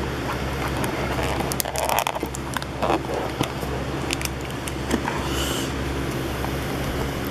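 Cardboard card box being handled and its flap picked at with fingertips: scattered clicks, crackles and scrapes of paperboard, busiest around two to three seconds in, over a steady low hum.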